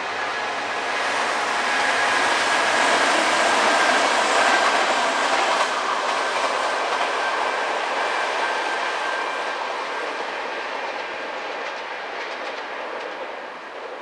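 Kintetsu electric train running past. Its noise swells to a peak about four seconds in, then slowly fades as it moves away, with a thin steady whine running through it.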